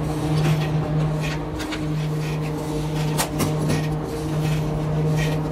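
Steady low hum of a motor running in the workshop, faltering briefly just under two seconds in, with irregular clicks and scrapes from hand work on a moulded rubber hose held in a bench vise.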